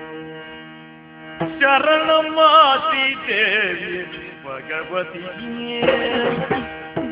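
Yakshagana accompaniment music: a steady drone under an ornamented melody line that bends up and down, with drum strokes coming in near the end.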